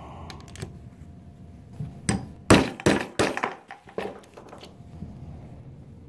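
A hammer tapping a new ball bearing down onto the steel shaft of a furnace draft inducer motor, metal on metal. There are a few light taps, then about four hard strikes in quick succession in the middle, then lighter taps. The bearing is a snug fit that has to be driven on rather than slid on.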